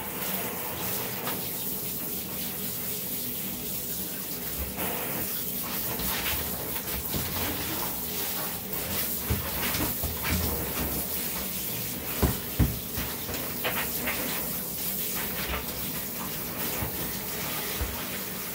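Water spraying from a handheld shower head onto a soapy Yorkshire Terrier puppy and the bathtub as the shampoo is rinsed out: a steady hiss and splash, with two sharp knocks a little past halfway.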